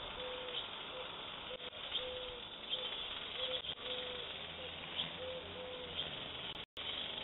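A dove cooing over and over in soft three-note phrases with a longer middle note, over a steady outdoor hiss. The audio drops out for an instant near the end.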